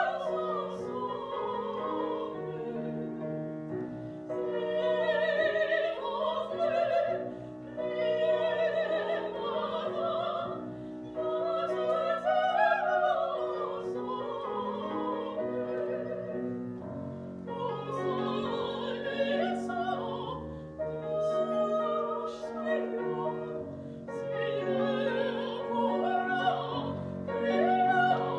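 Two women's voices singing an operatic duet with vibrato, accompanied by a grand piano.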